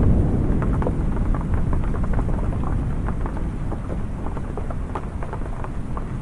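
Rain pattering on a wooden awning, many quick separate drops, over the low rumble of ocean surf that slowly eases off.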